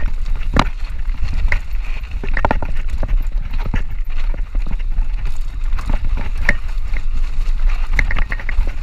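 Mountain bike rattling and knocking irregularly as it rolls fast down a rocky dirt trail, over a steady low wind rumble on the microphone.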